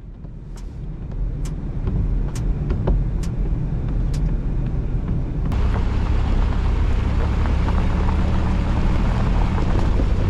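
Car driving, heard from inside the cabin: a steady low engine and road rumble that fades in, with a light tick about once a second for the first four seconds. The road noise grows louder about five and a half seconds in.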